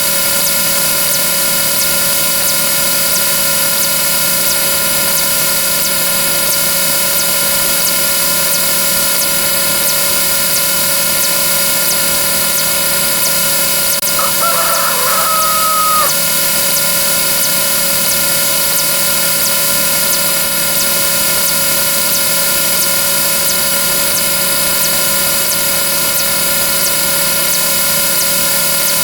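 A dense, steady wall of overlapping synthetic sound effects: many fixed tones held over a hiss. A rooster crow sound effect cuts through once, about halfway through.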